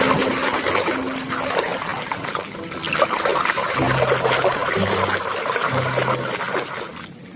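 Water trickling and splashing while a muddy toy vehicle is washed, with many small clicks and splashes, over a quiet background tune of low held notes.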